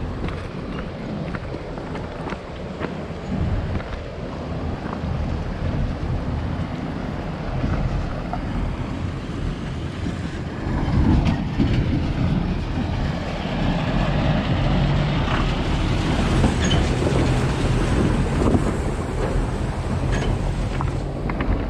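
Wind buffeting the microphone over the rattle and crunch of a bicycle riding on a rough, stony dirt road, with scattered sharp clicks and knocks. It grows louder and busier about halfway through.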